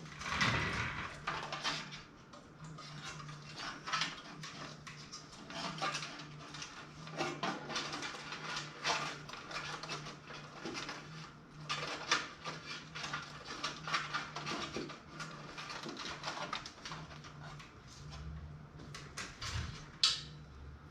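Irregular clicks, taps and rustles of PC cables and connectors being handled and tucked into place inside a metal toaster-oven case, with one sharp click near the end.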